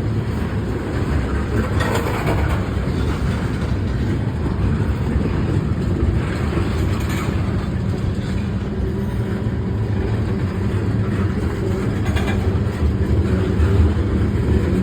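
CSX local freight train rolling past, its cars' wheels running on the rails in a steady, continuous noise.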